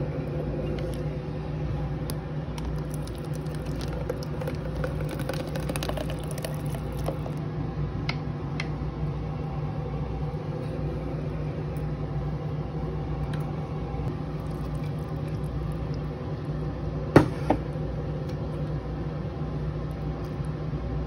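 A steady low hum, with small clicks and taps of cups and utensils being handled. Two sharp knocks come about seventeen seconds in, the first the loudest.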